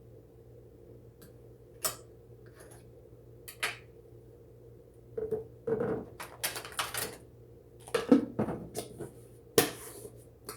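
Utensils clinking and scraping against dishes in irregular knocks and clicks, sparse at first and coming thick and fast over the second half, over a steady low hum.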